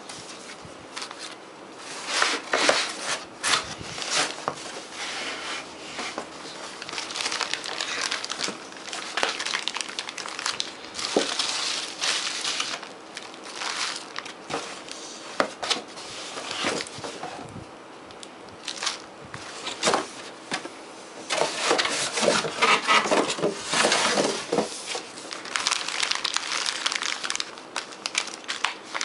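Plastic bags and bubble wrap crinkling and rustling in irregular bursts as a laptop power adapter and its power cable are handled and unwrapped.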